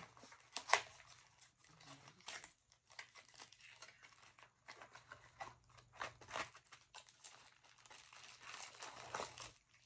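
Small white cardboard box and its packing crinkled, torn and handled as it is opened and the item pulled out: faint irregular crackles and rustles, with a sharper crackle just under a second in.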